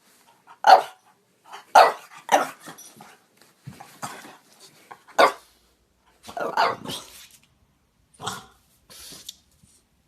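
French bulldog barking in short, separate barks, about eight at an uneven pace, with a quick run of barks a little past the middle.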